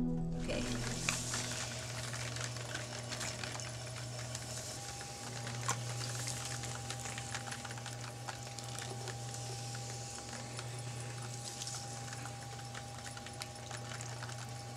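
Electric potter's wheel running with a steady low motor hum while wet clay is centred by hand, with faint rubbing and a few small clicks. A faint higher whine joins about five seconds in.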